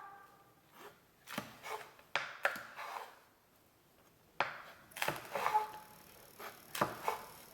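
Kitchen knife chopping the ends off French beans on a cutting board: a string of separate short knocks, pausing for about a second near the middle before the chops resume.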